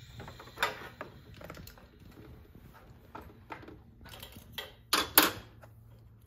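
Light metallic clicks and taps of hand tools working on the valvetrain during a valve lash adjustment, with two sharper knocks about five seconds in.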